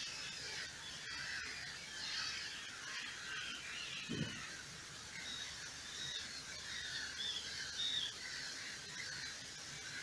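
Faint chorus of many short, high, wavering chirping calls overlapping one another, with a brief low sound about four seconds in.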